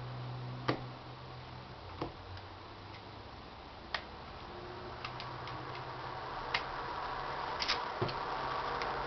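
Scattered sharp metallic clicks and taps of a semi-automatic pistol's slide and frame being handled as the slide is worked back onto the frame rails, over a steady low hum.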